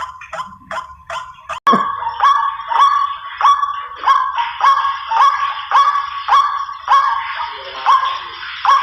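White-breasted waterhen lure recording: a steady chain of rising 'kru-ak' calls, about one every half-second or so. The calls jump louder after a sharp break about two seconds in.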